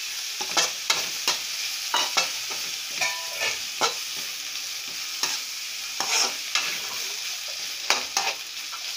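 Vegetables sizzling in hot oil in an aluminium kadai while a perforated metal skimmer stirs them, scraping and clinking against the pan at irregular intervals. A short ringing note sounds about three seconds in.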